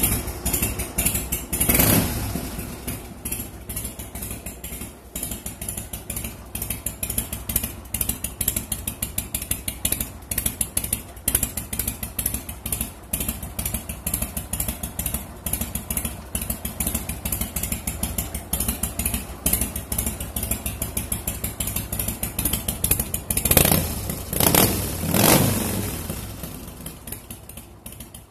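A freshly started 1988 Harley-Davidson 1340 cc Evolution V-twin idling with an uneven, pulsing beat. It is revved up briefly about two seconds in and a few times near the end.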